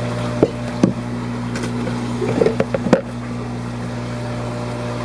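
Steady hum of fish-room pumps and equipment, with a few short knocks and clicks from handling: two near the start and a cluster around two to three seconds in.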